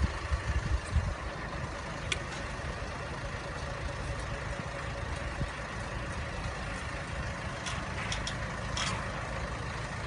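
Heavy truck engine running steadily at low revs, with uneven low thumps in the first second and a few short, sharp clicks about two seconds in and again near the end.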